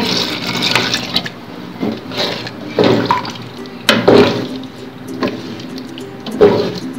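Chickpea cooking water poured from a glass into a pot of chickpeas in masala gravy, splashing in for about the first second. Then a wooden spoon stirs it, knocking sharply against the metal pot about three times.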